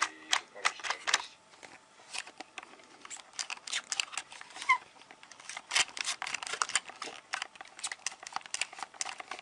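Irregular clicks and light rattles of a plastic Tefal steam iron body being handled, with its program selector dial being turned.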